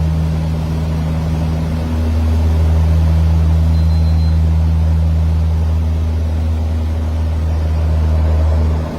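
Steady drone of a de Havilland Canada Dash 8's turboprop engines and propellers heard inside the aircraft: a loud, deep, even hum with a low tone that holds constant.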